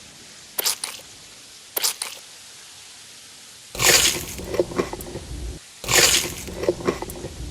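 Close-miked eating sounds: a couple of short wet clicks, then two bouts of crunchy, squishy chewing of about two seconds each, about halfway through and near the end.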